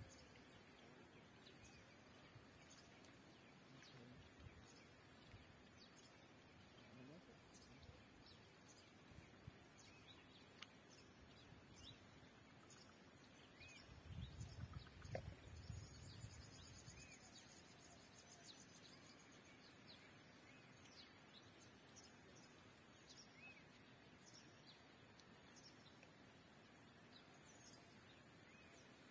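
Near silence: faint lakeside ambience with scattered faint bird chirps and a thin steady high hum, and a brief low rumble about halfway through.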